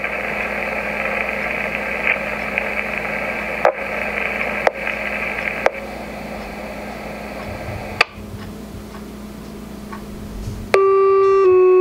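RadioShack scanner speaker hissing with radio static and a few sharp clicks on the open dispatch channel. About a second before the end, a loud steady tone starts and steps to a second pitch: two-tone sequential paging tones that set off fire and EMS pagers.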